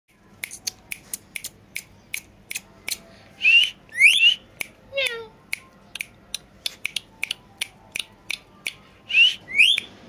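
Indian ringneck parakeet whistling: two pairs of loud rising whistles, one a few seconds in and one near the end, with a falling run of whistled notes between them. A train of sharp clicks goes on throughout at three or four a second.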